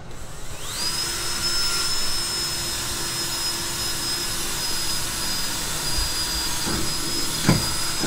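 Cordless drill spinning up and running steadily with a high motor whine as it bores into the wall of a drinks cooler cabinet. A couple of knocks come near the end.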